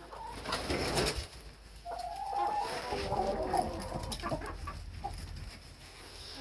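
Chickens clucking in a coop, with one long drawn-out call from about two seconds in that lasts around two and a half seconds, after a brief rustling noise near the start.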